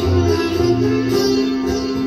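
Sitar being played in Indian style, its plucked melody ringing over a steady drone, with a low drum beat thumping about twice a second that keeps the teevra taal rhythm.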